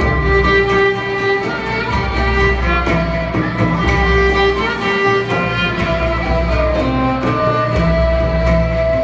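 Turkish traditional ensemble playing a slow melody. Violin and ney hold long notes over kanun and oud, with a low frame-drum pulse that drops out briefly a few times.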